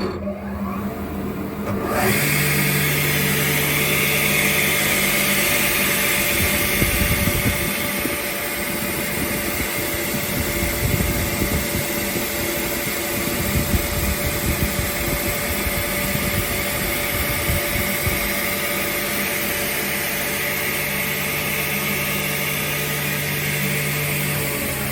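REMA sliding-table circular saw with scoring blade starting up, its pitch rising as it comes up to speed over the first couple of seconds, then running steadily at full speed with a steady hum. An uneven low rumble runs through the middle stretch.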